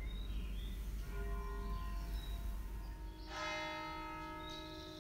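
A church bell strikes about three seconds in and rings on, fading slowly, with the next strike starting right at the end. Before it there is only a low rumble.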